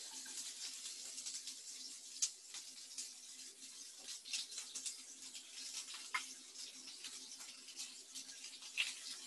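Food sizzling in hot oil in a frying pan: a faint, steady hiss with small scattered crackles, over a low steady hum.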